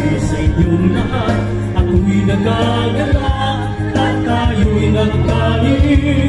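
A choir singing a song with instrumental accompaniment, over a steady low bass.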